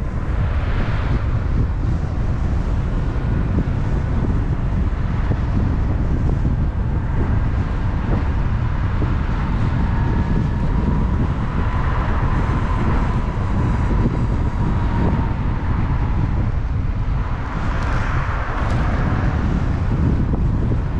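Heavy wind buffeting the microphone of a CSC City Slicker 3.2 kW electric motorbike riding at road speed, with a faint thin whine and a few swells of road noise beneath it.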